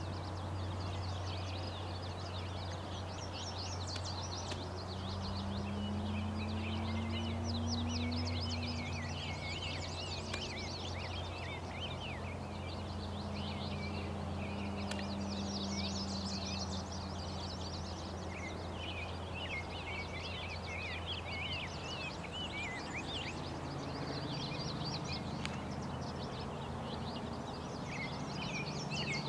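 Several small birds singing and chirping over one another, quick short notes that keep going throughout, over a steady low hum.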